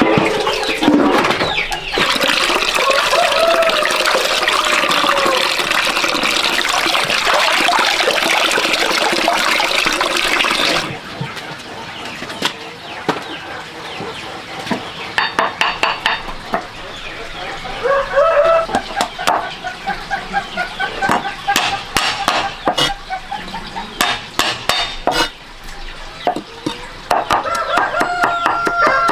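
Chickens clucking, with a rooster crowing about two-thirds of the way through and again at the end. For the first ten seconds or so a loud, steady rushing noise covers them, then stops suddenly.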